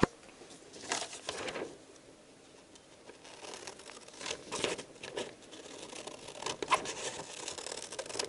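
Metal scissors snipping through a sheet of paper, with the paper rustling as it is held and turned. Several short snips and crinkles come and go.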